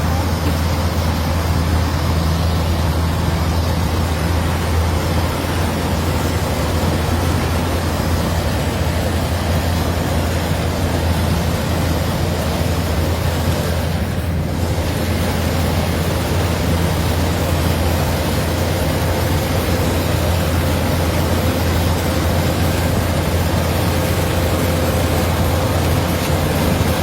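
Kubota DC-105 rice combine harvester running steadily, with a deep, even engine hum and a faint steady whine from its machinery.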